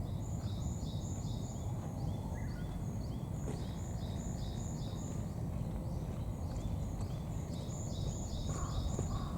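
A bird sings a rapid, high, repeated chirping phrase in two runs, a few notes a second, over a steady low background rumble.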